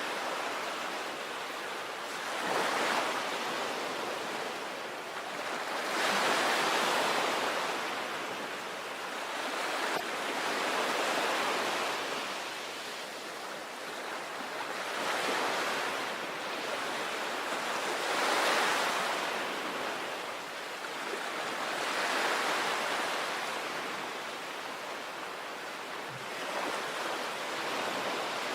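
Sea waves breaking on a shore, a steady wash of surf that swells and ebbs with each wave, about every three to four seconds.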